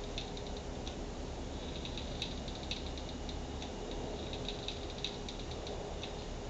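Hot glue gun being worked down inside a glass bowl, giving faint, irregular clicking and ticking in small clusters over a steady low hum.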